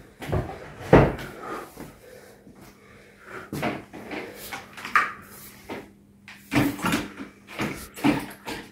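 Irregular knocks and bumps of housework: wooden-framed chairs being shifted on a parquet floor and a broom knocking and scraping as it sweeps. About ten sharp knocks come at uneven intervals, with a faint scraping between them.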